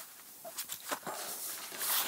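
Faint rustling and a few light ticks of a person shifting while kneeling in snow and handling an axe, growing louder near the end as the axe is lifted.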